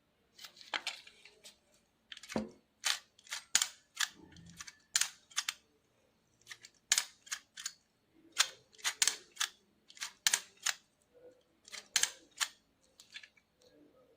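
Antique camera's mechanism worked by hand: a long, irregular series of sharp clicks and snaps, some coming in quick pairs.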